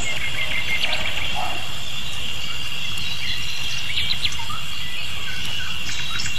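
Outdoor nature ambience: a steady high-pitched insect drone, like crickets or cicadas, with scattered short bird chirps and a low rumble underneath.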